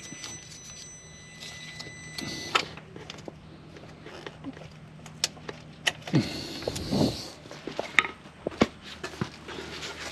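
Clicks and handling noise as the starter solenoid connector on a 2012 Kia Soul is unplugged, with two short whirring sounds, one about six seconds in and the next about a second later.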